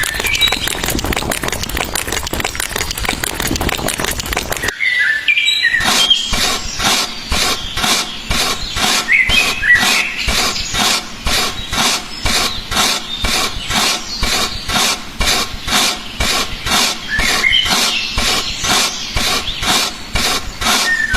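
Birds chirping now and then over a noisy background that, about five seconds in, turns into a fast, even rhythmic clatter of about three beats a second.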